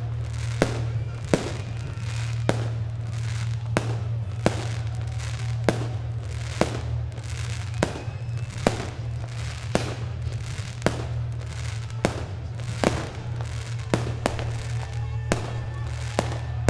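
Fireworks display: aerial shells bursting in a continuous run of sharp bangs, roughly one to two a second, over music with a steady low bass.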